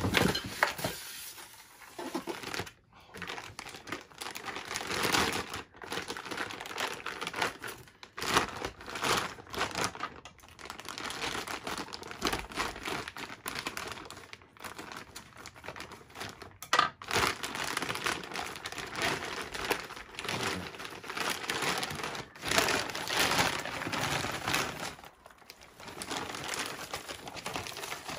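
Blue plastic wrapping crinkling and rustling in irregular bursts, with short pauses, as it is handled and pulled off a sewing machine.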